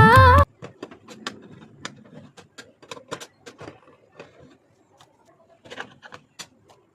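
Background song with singing cuts off suddenly about half a second in, followed by a string of faint, irregular clicks and taps.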